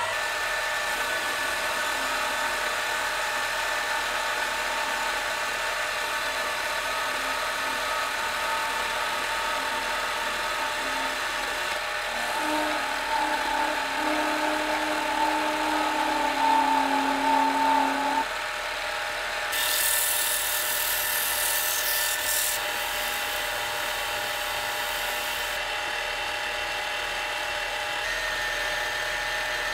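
Small metal lathe running steadily, its motor and gearing giving a whine of several steady tones. A carbide turning tool cuts the spinning steel part, and a louder singing tone joins in for several seconds partway through. A brief hiss follows, and near the end an abrasive pad is pressed on the turning part to polish it.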